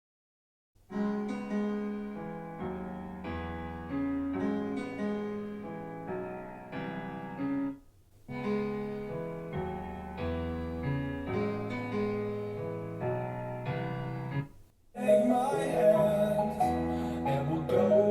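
Piano music played back through a portable Bluetooth speaker and recorded binaurally. A piano passage plays, stops short, then plays again after a brief gap, and near the end a fuller, brighter piece of music starts.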